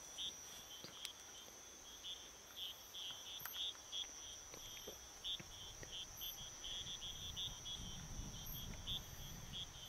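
Night insects calling: a steady high buzz with crickets chirping in short, uneven pulses over it, and a few faint clicks. A low rumble comes in near the end.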